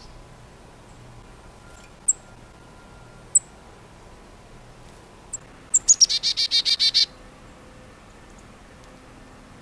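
Chickadee calling: three short, high, thin chips spaced a second or so apart, then a rapid chick-a-dee-dee call of about ten buzzy notes lasting just over a second.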